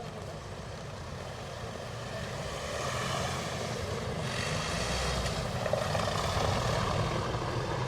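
Street traffic: a motor vehicle passing close, its engine rumble and tyre noise swelling from about two and a half seconds in and staying loud until near the end.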